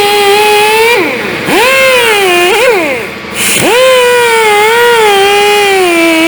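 Power tool spinning a wire brush for cleaning. Its motor whine sags in pitch when the brush is pressed onto the work, about a second in and again past three seconds, and rises again when it is eased off.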